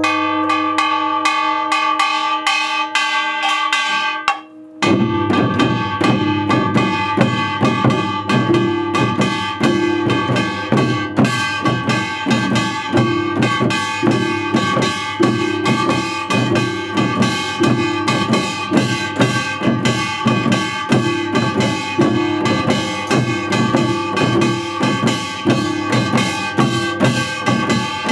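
Music with a drum kit keeping a steady beat over sustained instrument tones; it cuts out briefly about four seconds in, then comes back with a heavier bass and beat.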